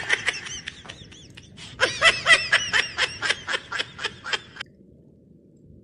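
A person laughing in two bouts: a short burst at the start, then a longer run of quick, rhythmic ha-ha-ha pulses, about five a second, from about two seconds in to past four seconds.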